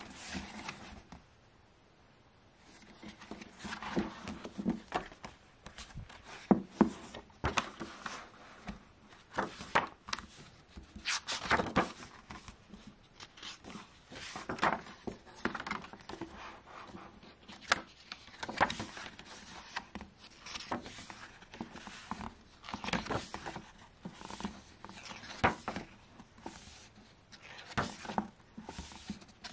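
Pages of a printed art book being turned and handled by hand: paper rustling and flapping in short, irregular bursts, with soft swipes and taps as the pages are pressed flat.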